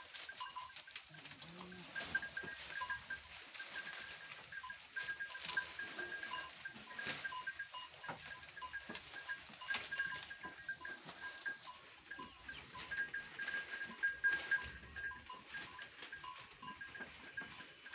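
Goats feeding from a rack of leafy fodder: many short rustles and snaps of leaves and twigs being pulled and chewed, with a low goat bleat about a second in.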